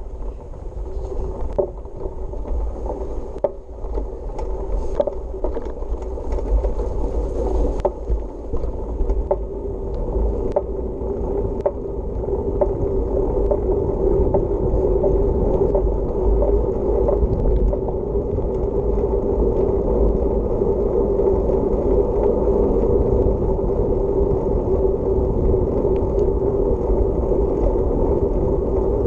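Wind rushing over the microphone of a camera on a moving bicycle, with the tyres rolling on an asphalt path. The noise grows louder over the first dozen seconds as the bike picks up speed, then stays steady, and scattered light clicks and rattles come through in the first half.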